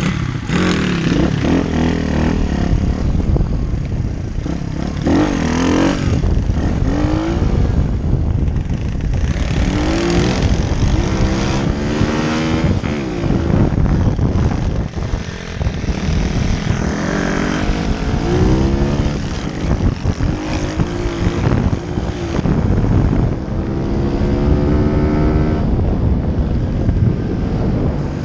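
Pit bike's small single-cylinder engine under way, its pitch climbing and dropping again and again as the rider opens and closes the throttle, with wind rush over the helmet camera.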